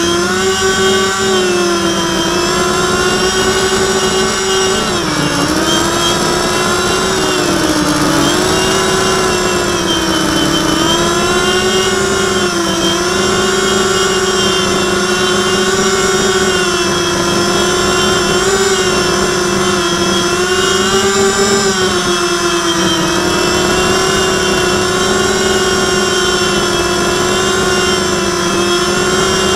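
FPV drone's electric motors and propellers whining loudly and steadily in flight, heard through the onboard camera; the pitch dips and recovers several times as the throttle is eased and opened again.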